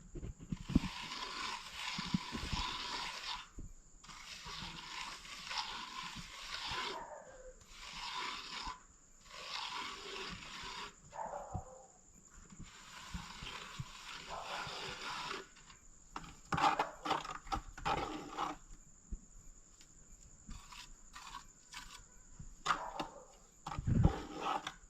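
Repeated scraping strokes of construction tools working sand and stones, each lasting one to three seconds with short pauses between, with sharp clicks of stones knocking together around the middle and near the end.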